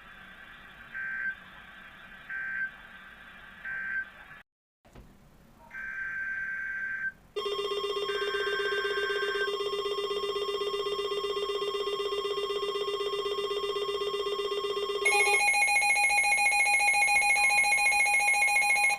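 Emergency Alert System broadcast tones: three short digital data bursts about a second apart, then two longer bursts. A loud, steady electronic alert tone starts about seven seconds in and jumps to a higher, louder tone about fifteen seconds in.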